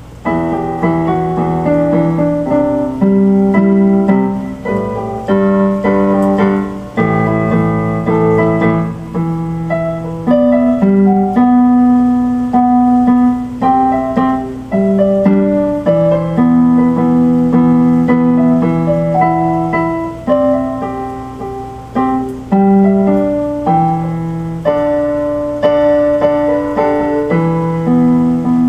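Electronic keyboard played in a piano voice: chords with a melody on top, changing every second or two, each note ringing and fading.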